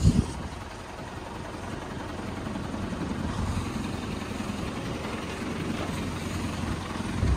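Crane truck's diesel engine running steadily while its hydraulic crane holds a truck gearbox on chains. A sharp thump comes right at the start and another near the end.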